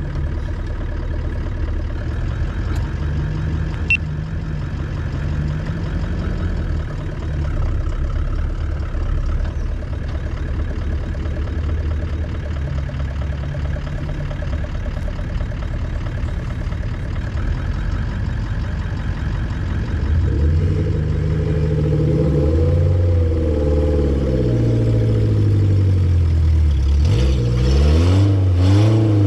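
Four-wheel-drive engine running at a steady idle, then revving up and down several times in the last third.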